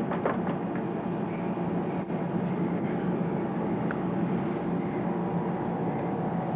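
Steady background rumble with a low hum and no distinct events.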